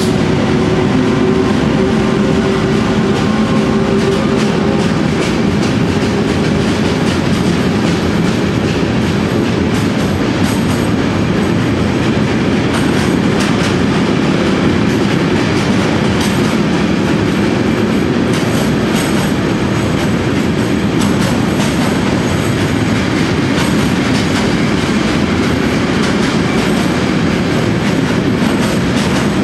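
Freight train of timber-laden wagons rolling past in an underground station: a loud, steady rumble with clickety-clack of wheels over rail joints. The locomotive's steady hum fades out over the first several seconds as it moves away.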